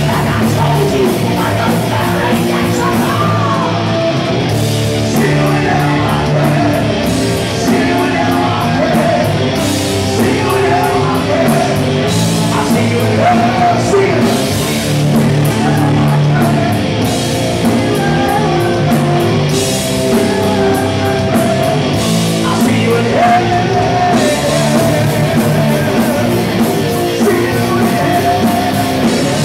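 Live heavy metal band playing loud: distorted electric guitars and drums, with a singer singing over them.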